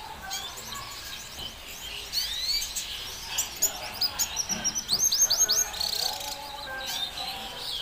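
Red siskin singing: a run of quick high twitters and chirps that builds to a burst of loud, sharp, rapidly repeated sweeping notes in the middle, then eases off.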